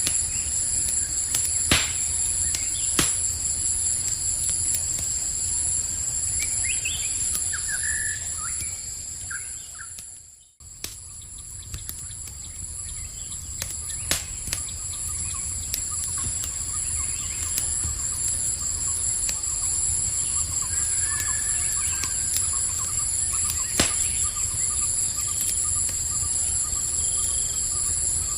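Campfire crackling with a low rumble and occasional sharp pops, over a steady chorus of night insects trilling at a few high pitches. A few short bird chirps come several seconds in, and about ten seconds in the whole sound fades almost to silence for a moment, then comes back.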